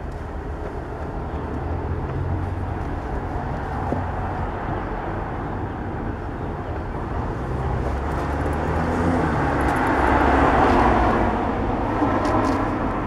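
Road traffic: a steady vehicle rumble that swells as a vehicle passes, loudest about ten seconds in, then fades.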